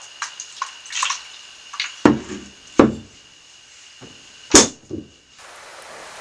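A string of sharp clicks and heavier knocks, the loudest about two, three and four and a half seconds in, over a faint steady high tone. About five seconds in the scene cuts to a steady hiss like rain.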